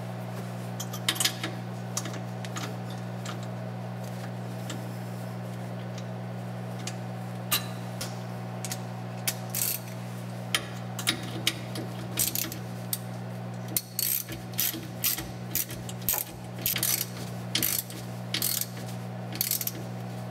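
Hand ratchet clicking in short runs, with sparse clicks at first and more from about halfway on, as a socket tightens a brass barbed breather fitting into a truck's rear axle housing.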